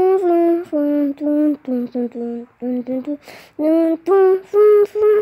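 A high voice singing a simple tune without accompaniment, in a string of short held notes with brief breaks between them.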